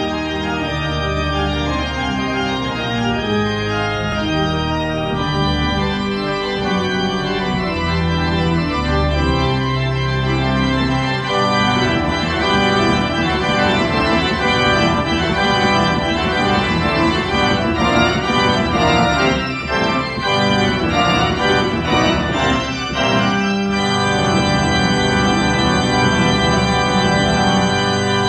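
Pipe organ playing: held chords over long low pedal notes, turning to fast running passages about eleven seconds in.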